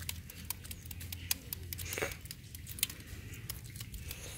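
Hard-boiled eggshells cracking and crackling as several hands peel eggs, a busy run of irregular small clicks and snaps.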